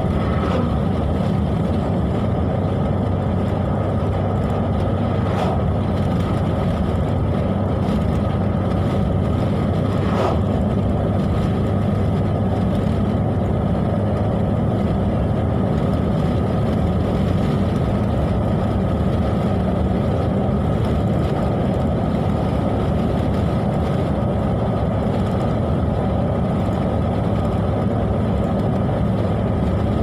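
Steady engine and road noise of a car driving along a highway, heard from inside the cabin, an even low rumble with a faint steady whine.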